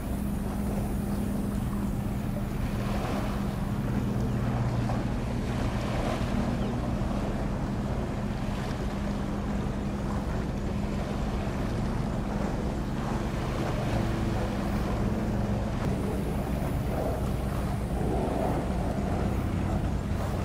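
Steady low drone of a ship's engine, with wind on the microphone and a wash of water noise.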